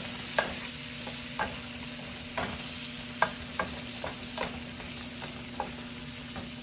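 Potatoes frying in butter in a skillet, sizzling steadily while they are stirred, with a utensil clicking against the pan about eight times at irregular intervals.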